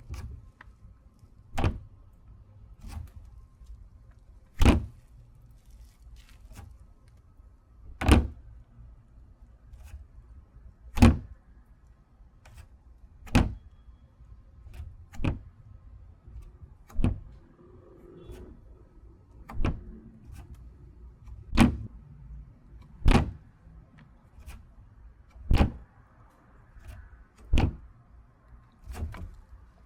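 Lid of an outdoor trash bin being opened and closed over and over, each close landing as a sharp bang every few seconds, with lighter knocks in between.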